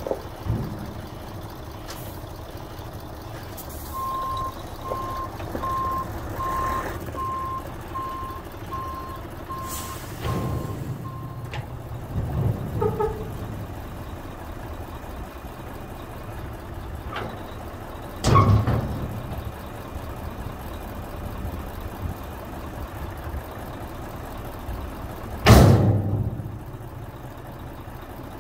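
Mercedes-Benz Actros 4141 tipper's V6 diesel running while the truck backs up, its reversing alarm beeping a little over once a second for about seven seconds. Later come two loud, sudden bursts of noise about seven seconds apart.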